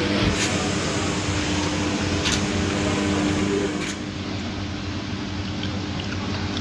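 A boat's engine runs steadily: a continuous low hum over a wash of noise, with a few light knocks.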